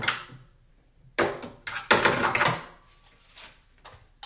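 A series of knocks and clatters from hand tools and metal parts being handled during work in an engine bay, the loudest run coming about two seconds in, with a few lighter taps after it.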